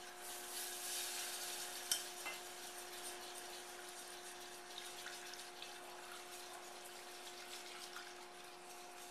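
Milk pouring in a thin stream into a butter-and-flour roux in a stainless steel saucepan while a wire whisk stirs it: a soft, steady pouring and stirring sound, with a couple of light whisk taps against the pan about two seconds in, over a steady hum.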